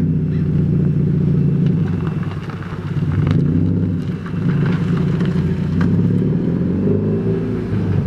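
Car engine running with a deep, steady exhaust drone, its pitch dipping and rising a couple of times as the revs change.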